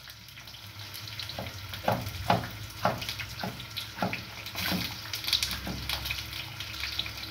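A knife cutting green bell pepper on a wooden chopping board, about two short chops a second, over a steady sizzle of sausages frying in a pan.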